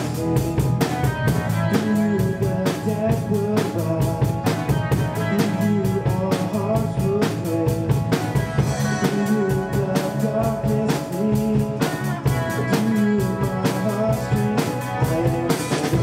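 Live worship band playing a rock-style song: a drum kit keeping a steady beat under electric guitars and bass, with a singer.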